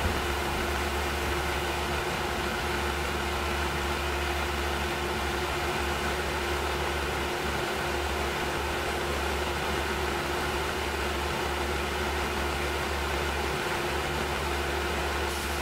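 Tormach PCNC 1100 CNC mill running steadily during a fine finishing cut in brass: an even machine hum with a constant mid-pitched tone and no change in level.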